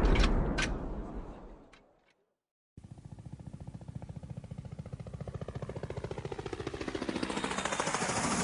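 Explosion rumble dying away with a few sharp debris crackles, then, after about a second of silence, a fast, even mechanical pulsing that grows louder toward the end.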